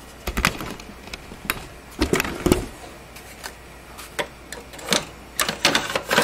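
Handling clicks and knocks of a hard drive in a plastic 5.25-inch bay bracket being brought to and pushed into the steel drive bay of a computer tower case, with heavier thumps about half a second and two seconds in.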